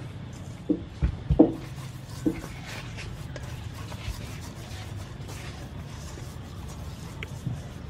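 Hands rubbing seasoning powder into a whole raw fish in a stainless steel bowl, handling and turning it, with a few short thumps in the first couple of seconds, the loudest about a second and a half in.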